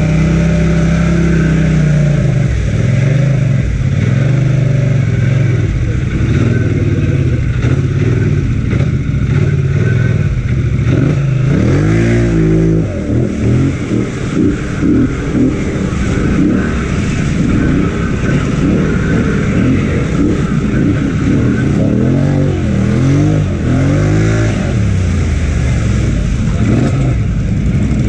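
Polaris Sportsman 1000XP ATV's twin-cylinder engine running under throttle, with the revs rising and falling several times about halfway through and again near the end.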